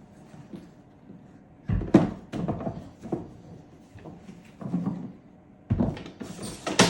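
Irregular clunks and knocks of hard plastic and metal as the Milwaukee Packout trolley and its detachable handle are handled, the loudest about two seconds in, with a brief scraping rush just before the end.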